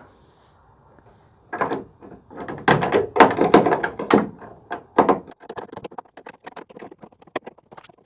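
Tailgate assist strut and its bracket being worked into place at the tailgate's bottom pivot: a run of knocks and clunks of metal and plastic parts for a few seconds, then many small, quick clicks and taps.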